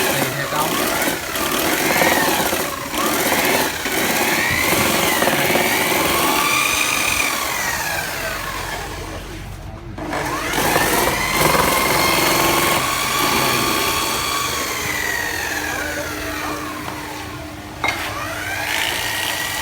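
Handheld electric drill running a homemade lemongrass slicer, its motor whine rising and falling in pitch as it speeds up and slows down, with a short drop about ten seconds in and again near the end.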